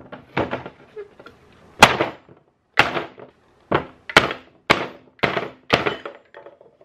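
A tail light housing with a screwdriver wedged behind its red lens, smacked against a workbench to knock the stuck lens out: about eight sharp knocks at uneven intervals, each with a short ring.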